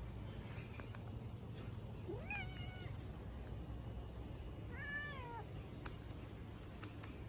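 Black-and-white tuxedo cat meowing twice: a call that rises steeply about two seconds in, then a shorter, arched meow that falls away about five seconds in. A few sharp clicks follow near the end.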